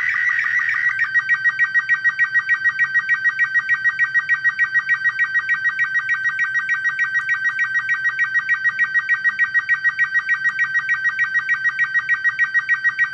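SSTV signal in Robot 36 mode played from a phone's speaker: a warbling electronic tone pitched around 1.5 to 2 kHz, pulsing regularly about six or seven times a second, one pulse per image line. It is a picture being sent as sound, line by line, while a second phone decodes it. About a second in the tone settles into a steadier pulsing as the transmission moves into a plainer part of the image.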